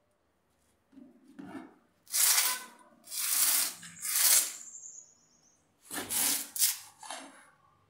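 A series of about five loud, gritty rubbing and scraping strokes, starting about two seconds in: hands working and firming a coarse, sand-laced compost mix into a plant pot around a newly replanted mussaenda cutting.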